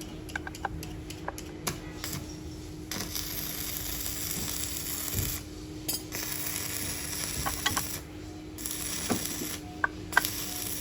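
Scattered metallic clicks and clinks of hand tools, over a steady low hum, with two stretches of hiss that start and stop abruptly.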